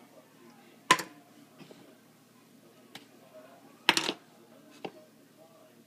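Two sharp clinks about three seconds apart, with a few fainter ticks between: small ingredient dishes or a measuring spoon knocking against a mixing bowl as ingredients are tipped in.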